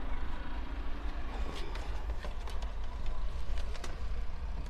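A few light clicks and taps from the dashcam power wire and the bare pillar being handled during routing, over a steady low rumble.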